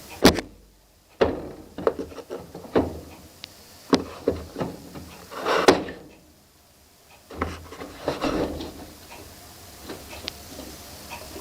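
A run of irregular knocks, clicks and rubbing sounds, the loudest a sharp knock right at the start and another just before the middle, with short scraping bursts in between.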